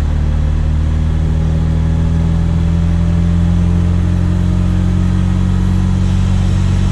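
Supercharged Chevrolet Chevette's OHC four-cylinder engine running steadily at highway cruising speed, heard from inside the cabin. Its drone rises slightly in pitch as the car gains a little speed.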